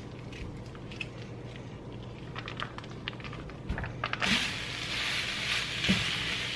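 Small crinkles and clicks of a plastic sausage wrapper as raw ground sausage is squeezed into a hot frying pan. About four seconds in, a steady sizzle starts as the sausage browns and is broken up with a spatula.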